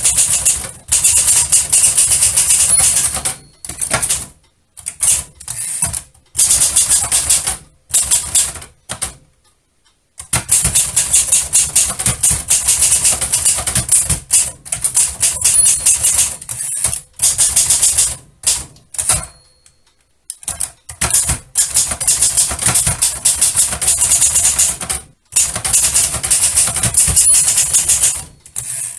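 Typewriter being typed on: fast runs of key strikes broken by short pauses, with two longer breaks near the middle and about two-thirds of the way through.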